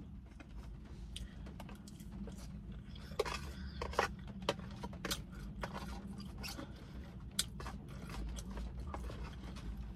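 A person chewing a mouthful of tuna salad close to the microphone: irregular wet mouth clicks and soft crunches, over a low steady hum.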